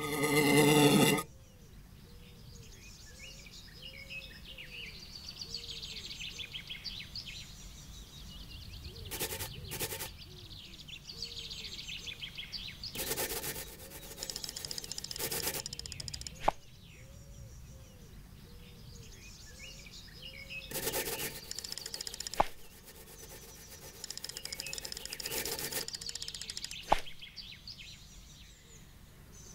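A fly buzzes loudly and cuts off about a second in. Birds then chirp steadily in the background, with four louder bursts of rustling noise and three sharp clicks.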